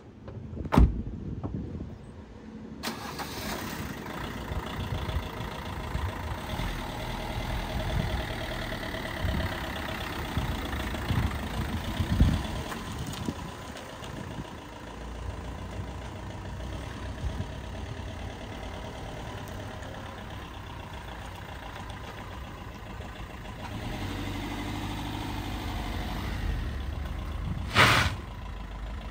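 Opel Combo 1.3 CDTI four-cylinder diesel engine starting and then running, mostly at idle. A sharp knock comes just before it starts, and a loud thump comes near the end.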